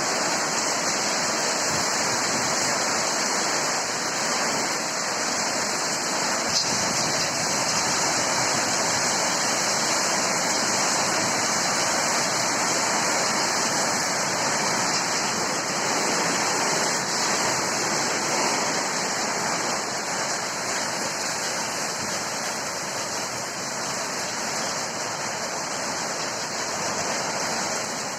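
Heavy rain pouring down in a windy rainstorm, a steady hiss with no let-up, with a single sharp click about six and a half seconds in.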